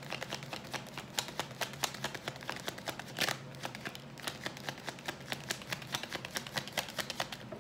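A deck of tarot cards being shuffled hand to hand: a quick, irregular run of soft flicks and clicks as the cards slide off the deck and drop onto each other.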